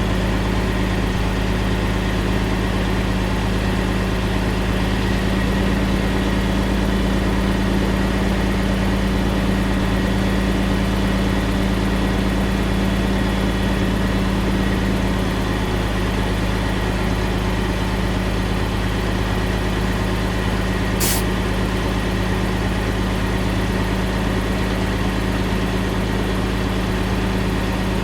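Heavy truck engine idling steadily, with an even low rumble. A short sharp hiss of air cuts in once about three quarters of the way through.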